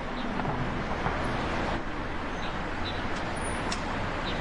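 Street traffic noise: cars passing on a city road, a steady wash of engine and tyre sound.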